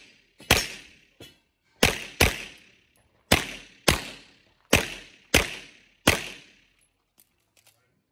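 Semi-automatic pistol fired rapidly, eight shots, mostly in quick pairs about half a second apart. Each crack is followed by a short echo.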